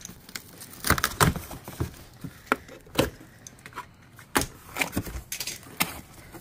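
A cardboard box being cut open with a box cutter: the blade slits the packing tape, and the cardboard flaps are pulled open, in a series of irregular sharp knocks, scrapes and rustles.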